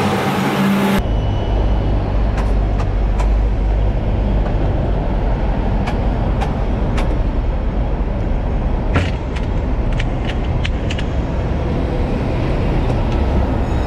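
Steady low rumble in the driver's cab of a Hong Kong double-decker tram, with scattered light clicks and ticks. A brighter hiss cuts off abruptly about a second in.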